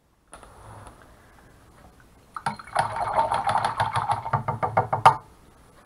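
A hand-turned lazy-susan turntable rotating, its bearing giving a rapid rattling clatter for about three seconds from about two seconds in, ending in a sharp click.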